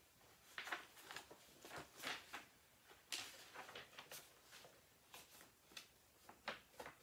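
Faint rustling and crinkling of paper as the pages of a large paperback picture book are turned and handled: a string of short, irregular rustles.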